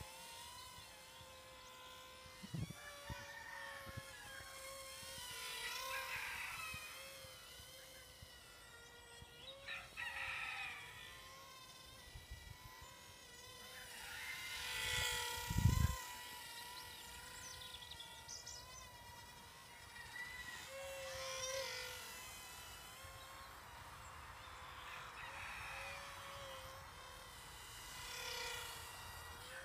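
Small electric motor and propeller of a PowerUp 4.0 power unit whining faintly and steadily in flight, swelling and shifting in pitch several times as the model flies nearer and farther and the throttle changes. Low thumps come about 3 seconds in and again around 16 seconds.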